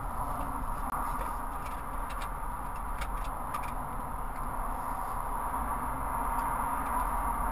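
Steady motorway traffic noise heard from inside a stationary car, with a low rumble and a few faint ticks.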